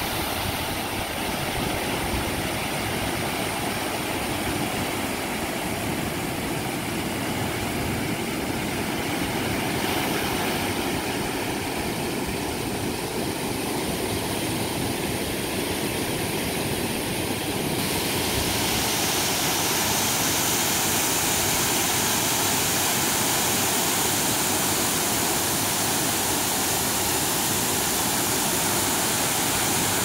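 Waterfall cascading down tiered rock ledges: a steady rush of falling water, growing a little brighter and louder a little past halfway.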